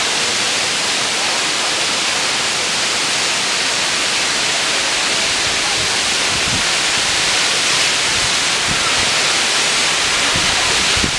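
Aber Falls waterfall rushing steadily, a loud even roar of falling water, with a few brief low rumbles in the second half.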